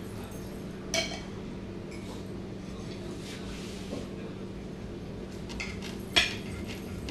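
Knife and fork clinking and scraping against a plate while cutting into a sauce-covered burrito. There are two sharp clinks, one about a second in and one near the end, with fainter taps between them.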